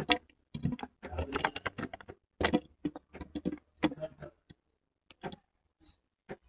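Cooked chowmein noodles tipped out of a metal pan onto a plate: a quick run of clicks and scrapes, dense for the first two and a half seconds, then a few scattered clicks until about five seconds in.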